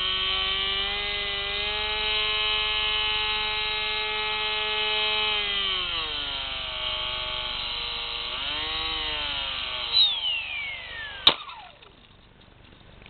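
FPV drone's electric motors and propellers whining steadily in flight, the pitch dipping and swelling with throttle changes. About ten seconds in the whine falls away as the throttle is cut, and a sharp knock follows as the drone comes down.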